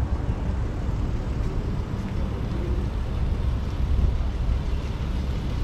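Steady low rumble of city background noise, with no distinct events standing out.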